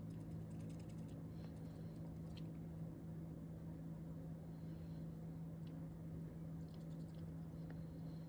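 Faint, irregular small clicks from a baby sugar glider eating, over a steady low hum.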